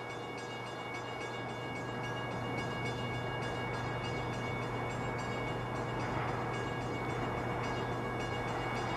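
NJ Transit commuter train approaching, its sound growing slowly louder. A steady chord of high tones starts suddenly at the beginning and holds throughout over the rumble of the train.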